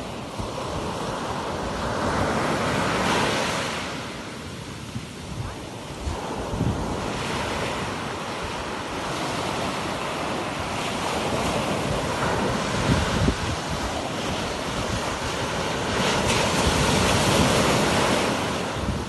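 Ocean surf breaking on a beach, the wash rising and falling in about four swells, with wind buffeting the microphone.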